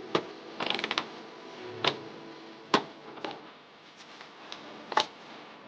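Sharp clicks and clacks of things put down on a table: about five single knocks spread apart, with a quick rattle of several clicks just before a second in.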